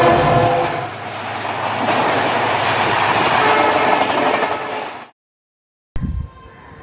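EMD WDP-4B diesel locomotive passing at speed with an express, a loud rush of engine and wheel noise that cuts off abruptly about five seconds in. After a moment of silence a much quieter, steadier rail sound begins near the end.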